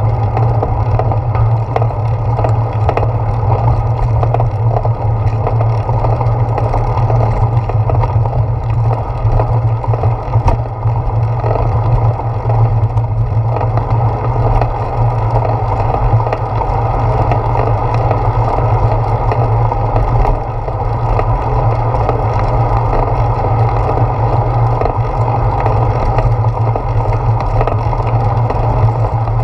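Steady rumble of a bicycle rolling along a paved path, with tyre and wind noise picked up through a handlebar-mounted GoPro action camera.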